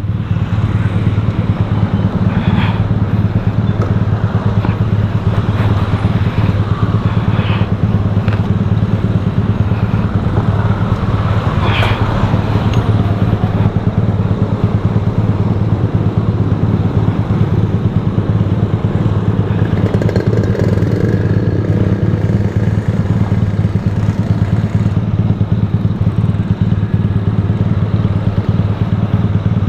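Vehicle travelling along the road: a steady engine and road drone with a few faint knocks. The rider has just noticed an odd noise, which he blames on trouble with the rear wheel rim.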